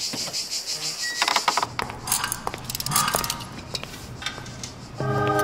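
Metal tools and engine parts clinking and tapping on a workbench: scattered sharp clinks, after a high hiss in the first second and a half. Music comes in just before the end.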